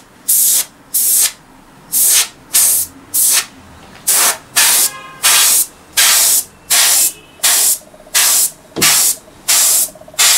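Airbrush spraying in short bursts of high hiss, about one and a half a second, each a fraction of a second long, as the trigger is pressed and released.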